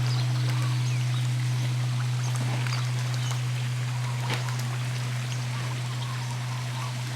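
Long hum of a large temple bell dying away after a strike: a deep steady tone fading slowly, its higher tones gone about two seconds in, over the trickle of running water.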